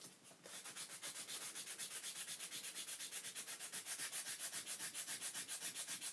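Hand file rasping against the edge of a small circuit board in quick, even back-and-forth strokes, about six or seven a second, starting about a second in. The board is being filed down so that its protruding battery holder will fit.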